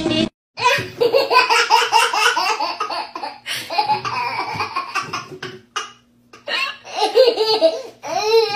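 Baby laughing in repeated high-pitched bouts, with a short break about six seconds in.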